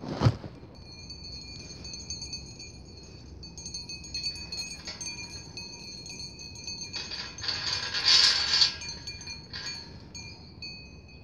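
Bells worn by a flock of sheep jingling and clinking as the sheep trot up and bunch together, with several steady high ringing notes throughout and the densest jangling about eight seconds in. A single sharp knock just after the start.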